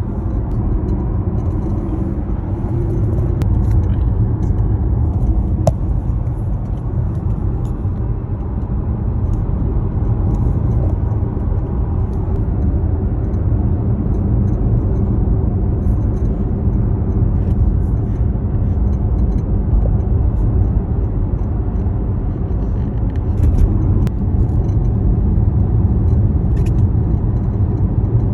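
Jaguar I-Pace electric car cabin while driving: a steady low road and tyre rumble, with faint short bursts of high-pitched electronic crackle coming and going at irregular moments. The owner traces this crackle to the dashboard and steering column, and dealer technicians have not been able to cure it.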